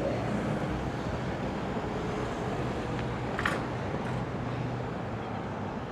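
Outdoor street ambience: a steady wash of road traffic noise that slowly fades a little, with one brief high chirp about three and a half seconds in.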